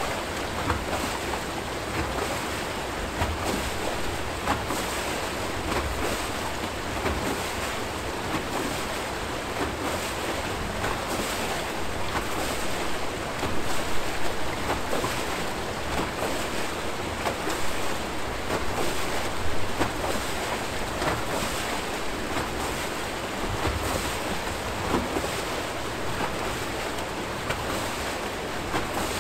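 Archimedean screw hydro turbine turning, water pouring off its flights and churning in the outflow channel below: a steady rushing of water, with a few louder splashes around the middle.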